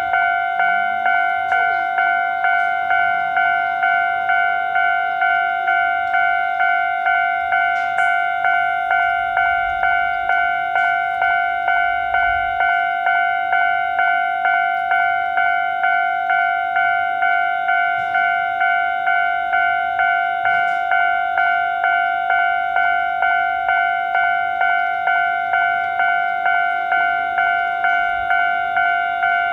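Japanese railroad crossing warning bell ringing: a slow, even electronic 'kan-kan' chime at about one and a half strokes a second.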